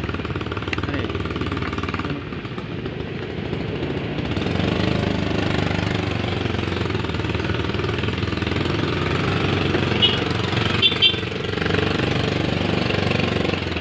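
Small motorcycle engine running steadily while riding, with two short high-pitched blips about ten seconds in.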